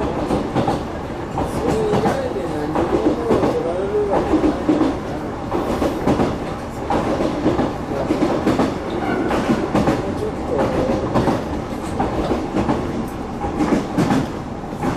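Inside a Yoro Railway local train running along the line: a steady rumble of wheels on rail, with repeated clacks as the wheels pass over rail joints.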